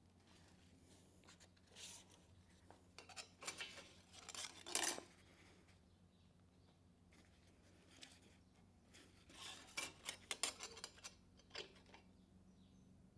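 Light metallic clinks and scrapes of a steel tube post and baseplate being handled and adjusted on a wooden workbench, in two short spells about three seconds in and again around ten seconds.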